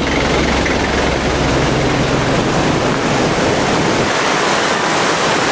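Nissan Frontier pickup pulling away along a dirt road, its engine's low rumble fading out about four seconds in, under a loud, steady rushing noise.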